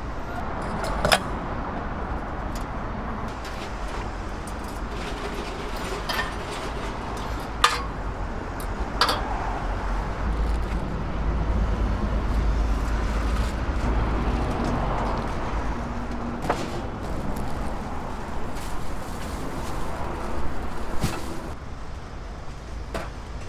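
Busy street-market ambience: a steady low rumble and hubbub, with a few sharp clicks and knocks of the kind that utensils or equipment make at a food stall.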